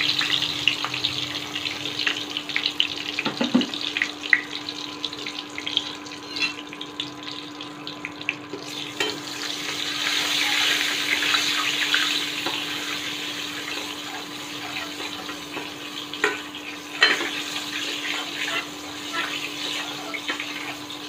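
Spice powder sizzling and crackling in hot oil in a steel kadai, with now and then the scrape and clink of a spatula stirring it, over a steady low hum. The sizzle swells about nine seconds in.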